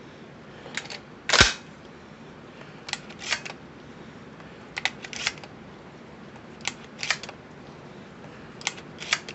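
12-gauge shells being pushed one by one into the magazine tube of a Citadel PAT pump shotgun: a pair of sharp metallic clicks about every two seconds as each shell goes in, with one louder knock about a second and a half in.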